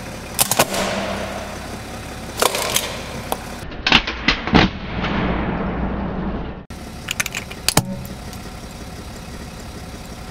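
Clear hard-plastic cases cracking and snapping as a car tyre rolls over them, in several bursts of sharp cracks over the low steady noise of the car.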